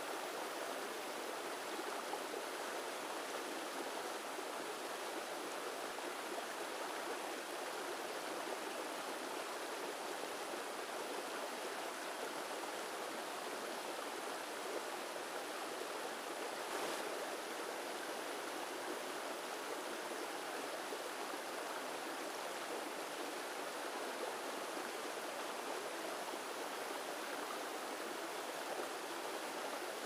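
Shallow rocky stream running over rounded stones in small riffles: a steady, even rush of water.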